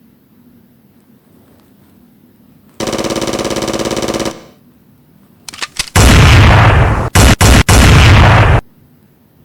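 Sound-effect automatic gunfire. A rapid, evenly rattling burst comes about three seconds in and lasts about a second and a half. After a few sharp cracks, a much louder sustained burst starts about six seconds in, broken twice by brief pauses, and stops about a second before the end.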